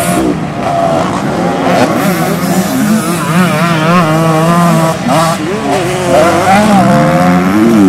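Several motocross and enduro bike engines revving and easing off on the dirt track, their pitches rising and falling over and across one another.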